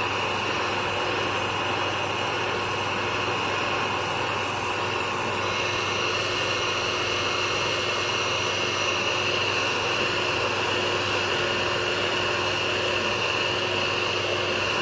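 Electric heat gun running steadily: a constant blowing rush with a thin high whine on top.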